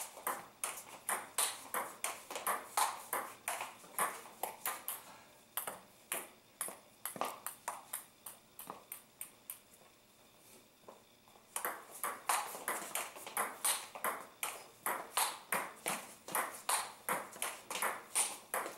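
Table tennis rally: the ball clicking off the paddles and bouncing on the table, about three sharp hits a second. Play breaks for a couple of seconds around the middle, then a new rally starts.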